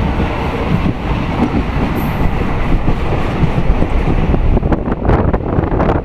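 Passenger train running along the track: a steady rumble of wheels and carriage, with a cluster of short sharp knocks and rattles in the last second and a half.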